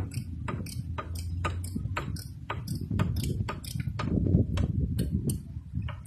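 Ratchet wrench clicking in a quick, even run of about four clicks a second as bolts are worked loose to take off the starter motor, over a low rumble.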